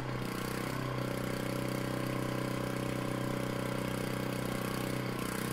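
A 3-horsepower Tecumseh single-cylinder gas engine running at a steady speed, belt-driving a converted Craftsman 10-inch table saw. Its note firms up about a second in and then holds even.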